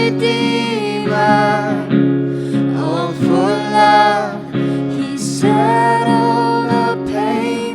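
Worship song sung with acoustic guitar accompaniment: a voice holding and gliding through sung phrases over strummed chords.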